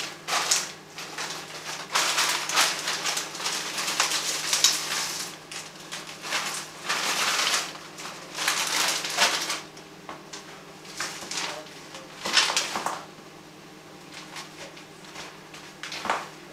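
Plastic bag of stir-fry vegetables crinkling as it is shaken out into a frying pan, the vegetables dropping into the pan, in irregular loud bursts. After about 13 seconds it goes quieter as the vegetables are stirred in the pan, with one short rustle near the end.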